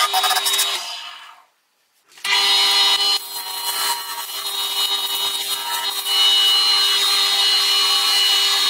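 Wood lathe spinning a turning blank while a hand tool and sandpaper work the piece: a steady motor hum under a scraping, rubbing hiss. It drops out about a second in and starts again a moment later.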